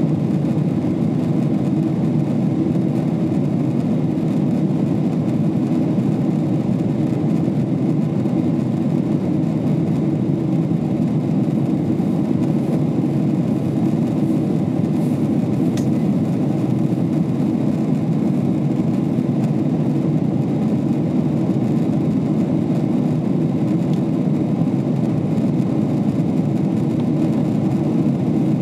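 Steady cabin noise inside a Boeing 777-300ER in flight: the deep, even drone of its GE90-115B engines and airflow past the fuselage, heard from a window seat by the wing. It holds one level and pitch throughout.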